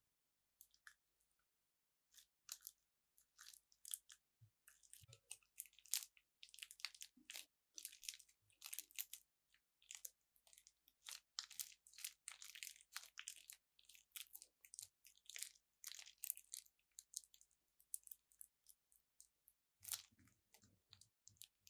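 Plastic piping bag crinkling and crackling as it is squeezed and folded by hand to press slime out: a dense run of short, sharp crackles with brief pauses between them.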